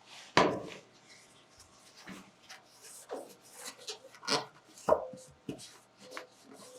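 Rag wiping and rubbing on the truck's painted cab surface while it is cleaned with alcohol, with scattered knocks and handling noises, the loudest just under half a second in, and short squeaks around five seconds in and near the end.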